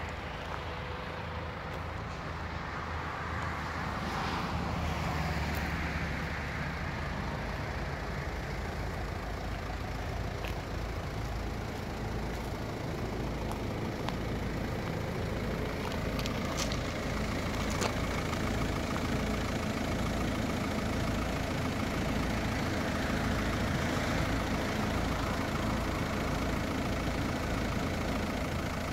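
Volkswagen Touran 1.9 TDI four-cylinder turbodiesel engine idling steadily, with an even low throb.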